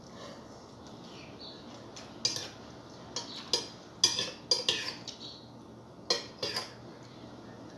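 A metal spoon clinking against a patterned bowl while someone eats: a series of irregular clinks. They start about two seconds in and come in small clusters, the last well before the end.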